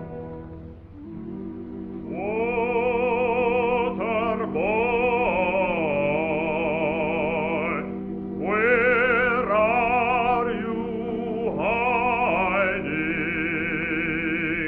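Soundtrack music: a melody of long held notes with strong vibrato, each sliding up into pitch, over sustained low accompanying chords, in an operatic singing style.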